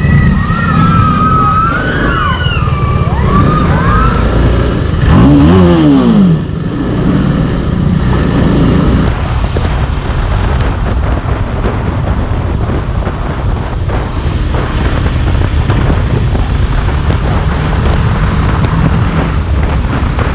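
Onboard sound of a TVS Apache RR310's single-cylinder engine running under way with wind and road noise, picking up speed. Wavering high whistling tones come in the first few seconds, and a loud tone falls in pitch about five seconds in.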